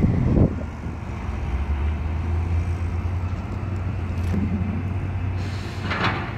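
Heavy truck diesel engine running steadily, a low hum. A hiss starts near the end.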